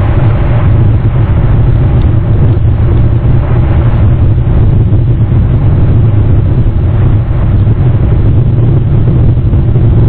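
Wind buffeting the microphone: a loud, steady low rumble with a fainter hiss above it.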